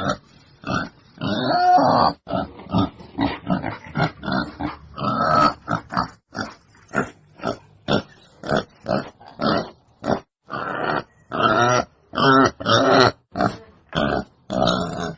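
Wild boar grunting in a quick run of short calls, a few per second, with several longer, drawn-out calls among them.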